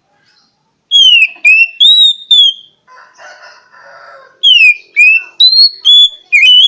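Oriental magpie-robin (kacer) singing: two phrases of loud, clear whistled notes, each slurring down or up, with a softer scratchy warble between them.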